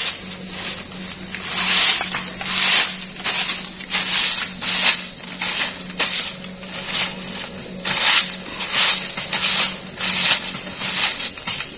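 Forest insects: a steady high-pitched drone, with a pulsing rasp that repeats about once or twice a second. A faint low hum lies underneath.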